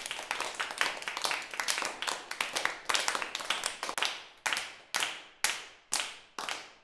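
Hand clapping: applause at the end of a sung act. It starts as dense, overlapping claps from several people, then settles from about four seconds in into a steady rhythmic clap about twice a second.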